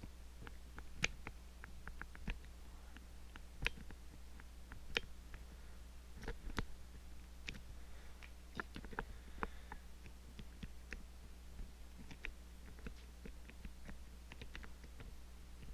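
Small, irregular metallic clicks and ticks of a pick working the levers inside an Ingersoll 10-lever padlock, with a few sharper clicks among them, over a steady low hum.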